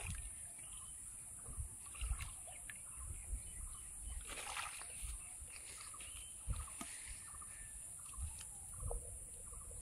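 Shallow water sloshing and splashing as a bamboo stake is worked into the muddy bottom at the river's edge, with scattered low thumps and small knocks, over a steady high hiss.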